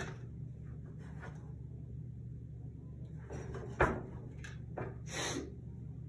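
Wire strippers working insulation off a thin reed-switch lead: a few light clicks and short scrapes, the sharpest click about four seconds in, over a low steady hum.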